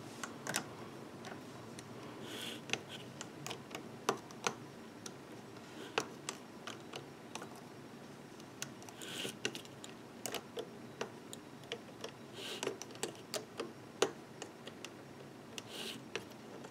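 Faint, irregular clicks and taps of a metal loom hook against the pegs of a clear plastic rubber-band loom as rubber bands are lifted and pulled over the pegs, with a few short soft rustles.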